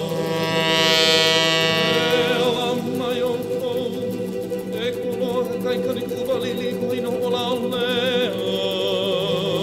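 Background music: a song with singing over sustained, gently wavering instrument tones.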